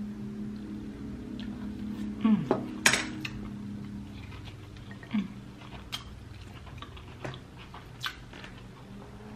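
A metal fork clinking and scraping against a glass bowl of crushed Hot Cheetos, with scattered sharp clinks. The loudest clink comes about three seconds in.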